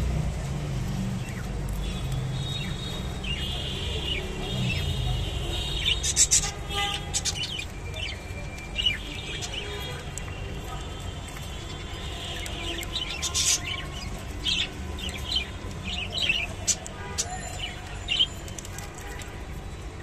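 Clearwing budgerigars chirping and warbling in short bursts, with sharp clicks scattered among the calls, busiest in the middle and later part.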